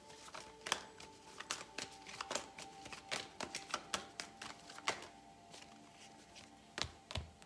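Tarot deck shuffled by hand, cards slid from one hand to the other, giving a run of quick irregular card clicks and flicks that thin out after about five seconds.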